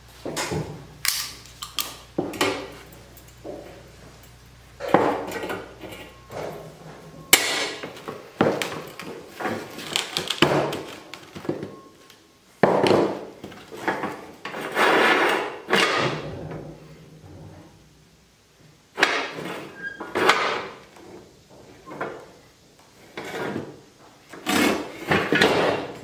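Irregular knocks, clunks and scrapes of a steel square tube being handled and shifted on a wooden workbench, under a low hum that stops about seven seconds in.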